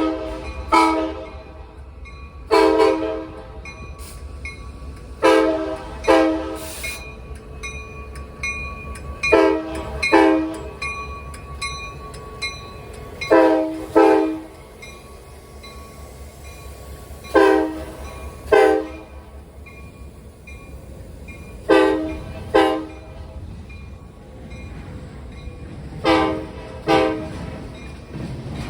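CSX 4547's multi-chime locomotive air horn sounding over and over. It blows mostly pairs of short blasts, a pair starting roughly every four seconds, over a steady low rumble.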